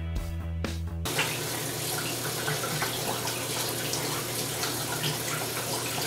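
Background music for about a second, then a sudden cut to a tap running into a sink, with hands splashing and rubbing under the stream.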